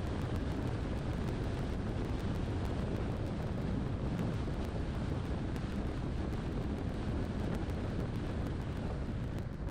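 Car on the move: steady road and wind noise that eases and loses its hiss near the end.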